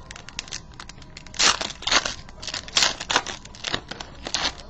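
Trading card pack wrapper being torn open and crinkled by hand, in several short sharp crackling bursts.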